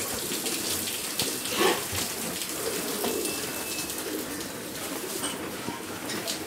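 Pigeons cooing, soft and low, against a steady hiss of background noise, with a few brief clicks.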